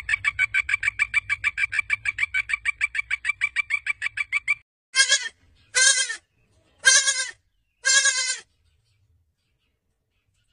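A frog's rapid pulsed call, about eight pulses a second, that stops about four and a half seconds in. It is followed by four short bleats from a wild goat, about a second apart.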